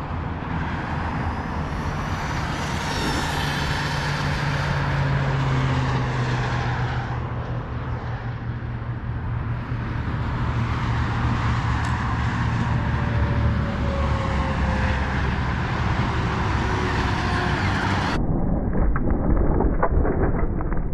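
Electric RC car (Tamiya Blitzer Beetle) on a flat-out speed run: a steady mix of motor whine and tire noise, with a couple of falling whines past the middle as the car goes by.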